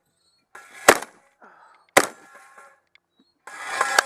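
Two shots from a semi-automatic Benelli Super Black Eagle shotgun about a second apart, each followed by a brief metallic ring from hit steel targets. Near the end comes a longer, louder noisy stretch with more ringing.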